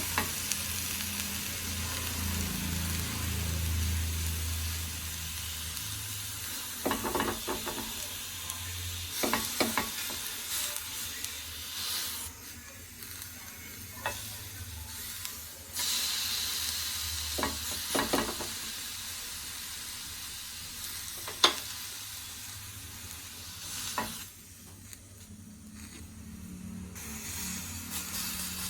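Doddapatre (Indian borage) leaves sizzling steadily as they heat on a hot pan and give off their moisture, the hiss dropping away twice for a few seconds. A handful of short, light clicks sound through it.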